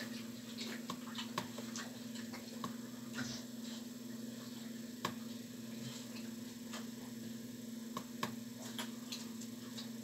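Scattered light clicks and ticks of a computer mouse and scroll wheel working a zoom-out in Google Earth, over a steady low electrical hum. A few sharper clicks stand out about five and eight seconds in.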